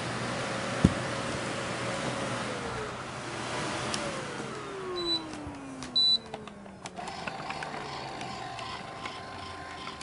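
Cyclone vacuum cleaner motor running with a steady whine, dipping and recovering, then winding down in a long falling whine after it is switched off. A sharp click about a second in and two short high beeps near the middle.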